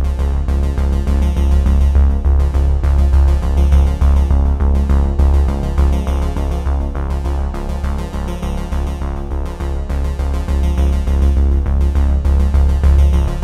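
Background music: a synthesizer tune over a strong bass with a steady beat.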